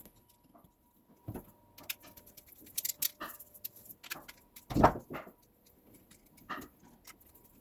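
Small clicks, taps and rattles of hands fastening two doorbell wires to their terminals, with one louder short knock about five seconds in.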